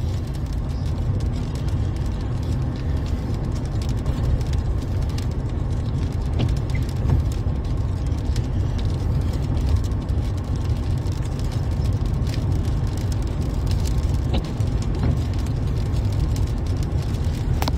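Steady low rumble of a truck driving at road speed, heard from inside the cab: engine and tyre noise with a few faint ticks.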